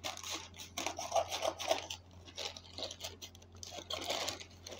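Scissors cutting through a plastic courier mailer bag, the plastic crinkling and snipping in irregular bursts.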